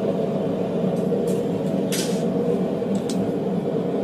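Steady roar of the running forge as the steel heats, with a few light metal clinks about a second, two seconds and three seconds in.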